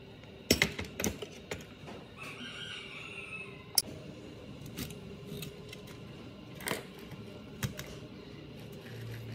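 Sharp metal clicks and knocks from a screwdriver working the mounting screws of an amplifier's power transformer on a steel chassis, and from the transformer being lifted free. A quick cluster of clicks comes in the first second and a half, then single knocks follow every second or so.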